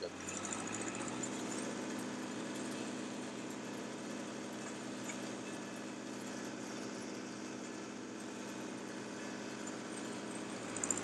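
Engine of a tracked 9700-VTR direct-push soil drill rig running steadily.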